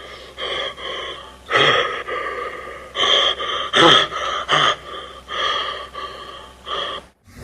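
Heavy, slow breathing in and out, Michael Myers–style: a run of loud, hissing breaths of about half a second to a second each, with short pauses between. It cuts off sharply near the end.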